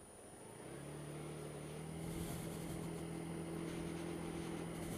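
Honda Dio scooter's engine pulling away from a stop, rising in pitch and loudness over the first two seconds, then holding a steady note as it cruises.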